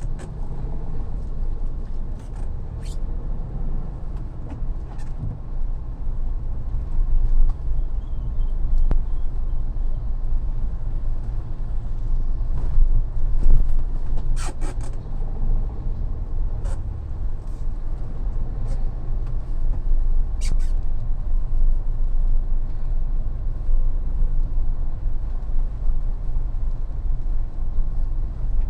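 Mahindra Thar on the move: a steady low engine and road rumble with a few sharp clicks scattered through it.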